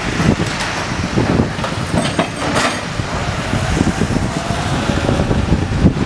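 Road traffic passing on a wet, slushy street, tyres hissing on the wet road, with wind buffeting the microphone.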